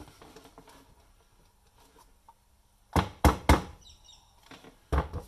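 Sharp knocks and clunks from the Breville CG10 coffee grinder being handled for disassembly: three in quick succession about three seconds in, two more near the end.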